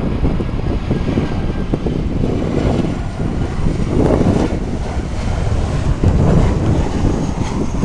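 Wind buffeting the microphone in uneven gusts, with the jet engines of a Boeing 737-700 airliner running faintly beneath the rumble.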